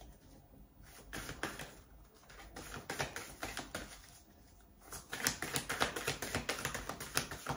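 A deck of tarot cards being shuffled by hand: quick, light clicks and flicks of the cards against each other. The clicks are sparse at first and come thick and fast from about five seconds in.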